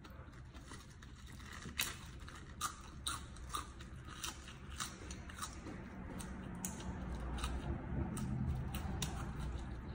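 Close-up chewing and biting of raw vegetables and herbs dipped in fish dip, a string of sharp crunches from about two seconds in, with wetter chewing growing louder near the end.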